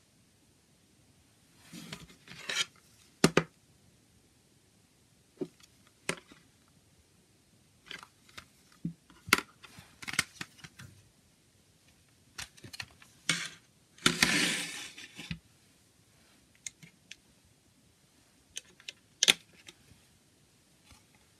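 A plastic CD jewel case being handled and opened: scattered sharp clicks and taps of hard plastic, with two short scraping rustles, the longer one about fourteen seconds in.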